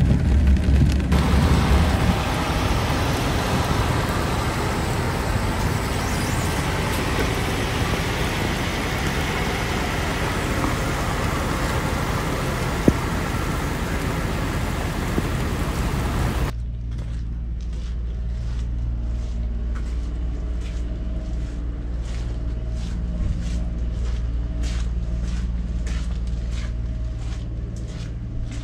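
Heavy truck's diesel engine running in heavy rain: a steady rush of rain over a low engine drone, changing abruptly about two-thirds in to a steady low diesel idle with scattered sharp taps.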